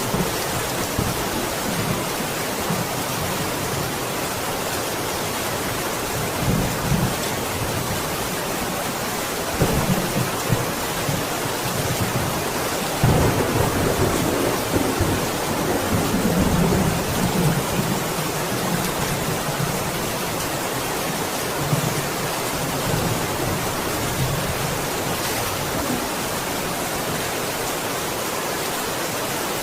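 Steady rain falling, with low rolls of thunder swelling up a few times, the longest about halfway through.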